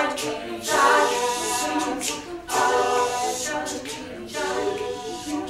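Several voices singing a cappella in a group vocal soundscape meant to evoke a coffee shop. They sing in phrases of about two seconds each, with breathy hiss mixed in, and the last phrase is softer.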